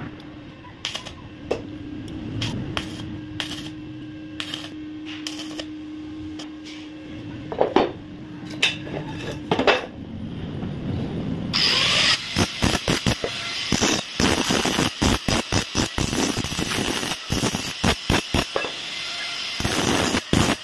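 For the first ten seconds, a steady low hum with scattered clicks and taps around the stick-welding of a square steel tube frame. About twelve seconds in, an angle grinder with a cut-off disc starts on 1-inch square steel tube, a loud, harsh grinding chopped by many short gaps.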